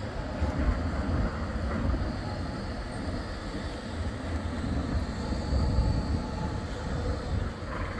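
Bombardier Flexity 2 articulated tram running along street track, a steady rumble of wheels on rail with a faint high whine.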